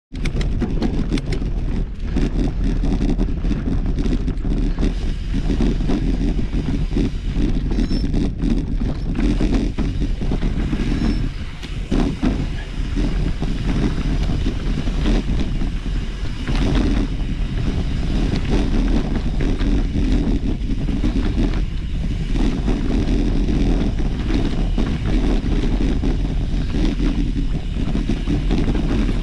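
Wind buffeting the microphone of a camera carried on a mountain bike, over the continuous rumble and rattle of the bike rolling along a trail.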